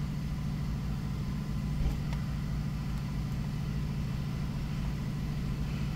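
An engine idling steadily, a low even hum, with a faint click about two seconds in.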